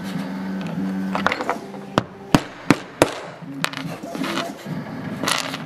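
Several sharp clicks and taps, about five in a second and a half starting a couple of seconds in, from small metal ball studs and plastic Traxxas rod ends being handled and set down on a rubber work mat.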